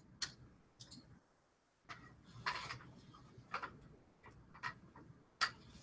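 Faint short clicks of a handheld presentation remote's button as slides are advanced, with soft rustling over quiet classroom room tone.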